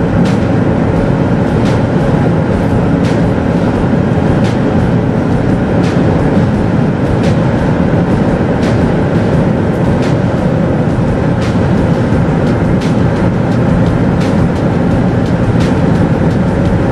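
Cabin sound of a 2016 Volvo XC90 D5 accelerating flat out at about 190–205 km/h: a steady drone from its 2.0-litre four-cylinder twin-turbo diesel, mixed with wind and tyre noise. A faint tick comes about every second and a half.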